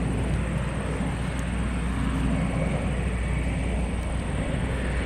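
Northrop Grumman E-2 Hawkeye's twin Allison T56 turboprops running steadily as it flies overhead, a low, even drone.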